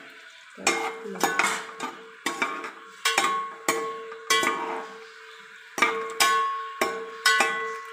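A metal slotted spoon knocking and scraping against a steel cooking pot while sliced onions are stirred in oil: about a dozen uneven clanks, each leaving the pot ringing with a clear tone.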